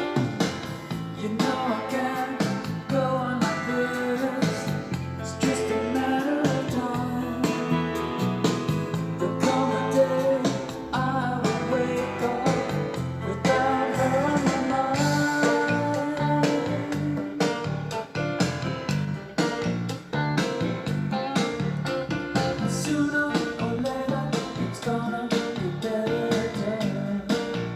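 A recorded song with singing over guitar and a steady beat, played back from a reel-to-reel tape deck.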